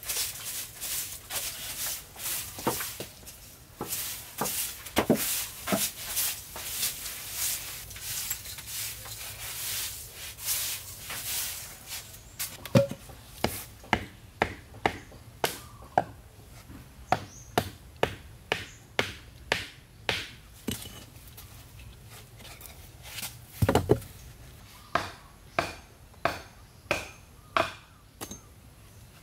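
Wood being chopped by hand: a long run of repeated strokes, quick and close together at first, then sharper single blows spaced a little further apart, with a short break near the end.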